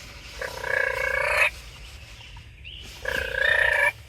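Wild turkey gobbling twice, each gobble lasting about a second, the second one about three seconds in.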